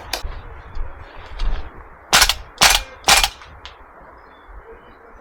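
Gas blowback airsoft rifle firing three single shots about half a second apart, each a sharp crack, after a couple of fainter shots.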